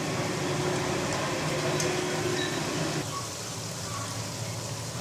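Chicken masala with chopped tomatoes sizzling in a metal handi as it is stirred with a spatula, a steady frying hiss that eases a little about three seconds in.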